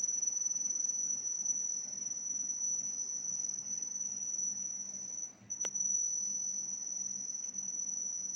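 Air conditioner indoor unit giving off a steady high-pitched whine: the sound fault being shown. The whine drops out briefly about five and a half seconds in, with a sharp click as it returns.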